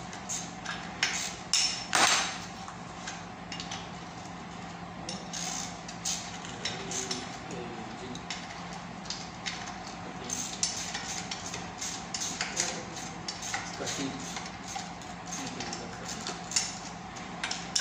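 Hand tools clinking and scraping against a buggy's differential housing during repair, many light metal ticks with one louder clank about two seconds in. A steady low hum runs underneath.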